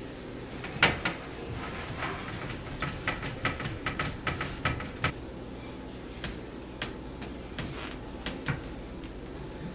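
A glass tabletop in a metal-framed console table being wiped down with glass cleaner and a cloth, with an irregular run of light knocks and clicks of glass and frame under the hand. The loudest knock comes just under a second in, and the clicks grow sparse after about five seconds.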